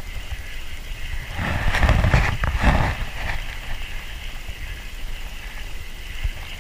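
Rain falling on the water as a steady hiss, with a louder rushing, rumbling stretch from about one and a half to three seconds in.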